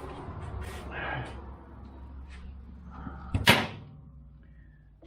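Hand tools being handled during suspension work: light clicks and rustling, then a single loud, sharp clank about three and a half seconds in.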